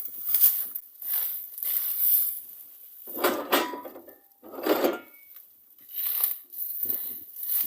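A series of separate metal clanks and knocks from tools and parts being handled during a hub repair, loudest a little past the middle.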